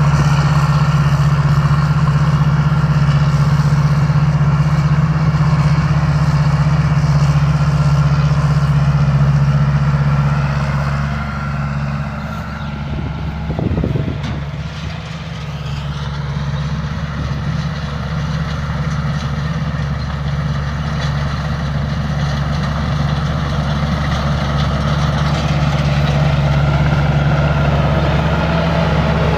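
Combine harvester engine running steadily with a deep, constant hum. About halfway through it eases off for a few seconds, with a short knock, then builds back up.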